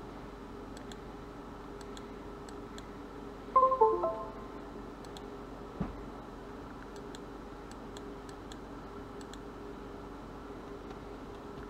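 Faint, scattered mouse clicks as the oscilloscope software's time-base setting is changed, over a steady low hum. About three and a half seconds in, a short run of chime-like tones steps down in pitch, and a single low thump follows near the six-second mark.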